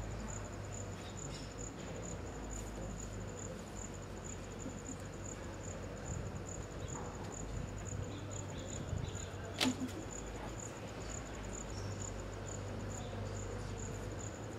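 Steady high-pitched insect chirping, pulsing evenly about three times a second, over a faint low rumble. A single sharp click comes about ten seconds in.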